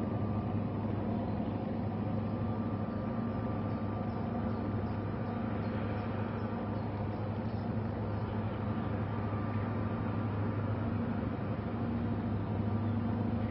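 A ship's engine running steadily, a low drone with a faint higher hum over it.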